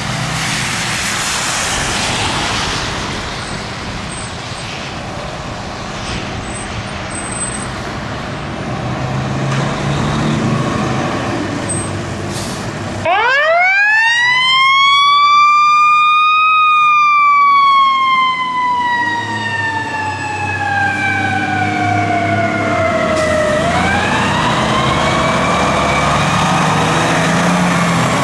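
A 2006 E-One Typhoon fire engine runs with a steady low rumble as it pulls out. About halfway through, its Federal Signal EQ2B mechanical siren winds up to a high wail, coasts slowly down in pitch for several seconds, and is wound up again near the end.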